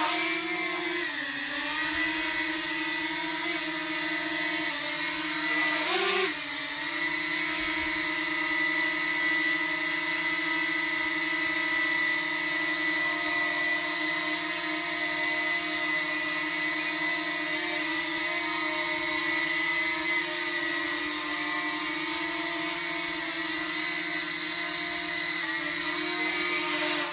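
DJI Mini drone's propellers whirring with a steady multi-tone whine as it hovers, the pitch settling just after the start and briefly jumping about six seconds in. The sound cuts off abruptly at the end.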